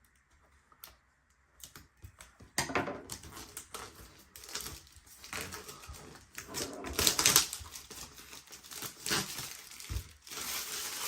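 Packaging being handled and opened by hand: irregular crinkling and rustling with small clicks, starting about two seconds in.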